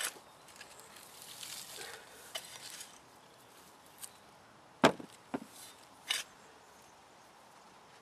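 Garden hand fork scratching and digging through dry, crumbly soil to turn out small potatoes, with a few sharp knocks, the loudest about five seconds in.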